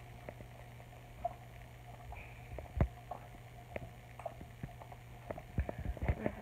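Newborn sucking on a baby bottle: soft clicks and smacks about once a second, over a steady low hum.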